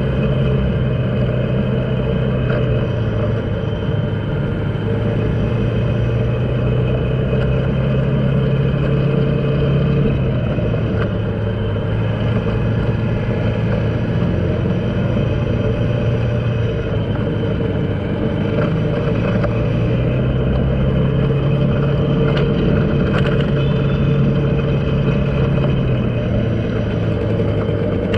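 Motorcycle engine running at road speed, heard from on the bike over steady noise. Its pitch drops a little about ten seconds in and rises again about twenty seconds in.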